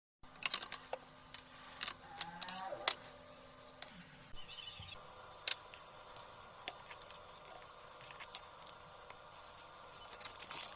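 Scattered clinks and a few short scrapes of metal kitchenware, bunched in the first three seconds and again near the end, over a faint steady hum.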